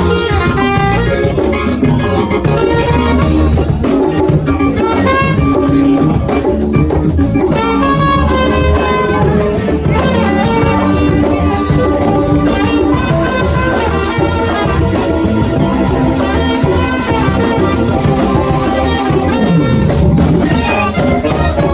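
Live funk band playing a steady instrumental groove, with drum kit, bass, guitars and horns.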